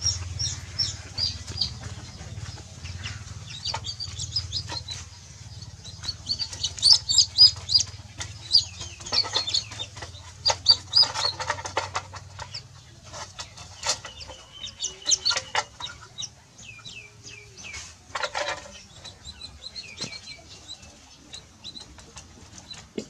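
Baby chicks peeping again and again in short, high calls that slide down in pitch, busiest a quarter of the way in, with occasional scuffs and knocks.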